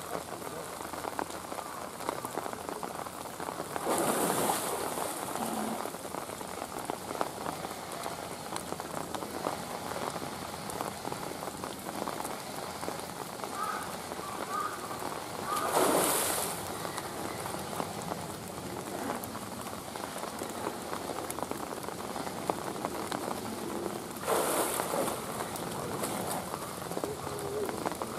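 Steady rain pattering on a pool of water and rock, with three brief louder rushes of water noise about 4, 16 and 24 seconds in.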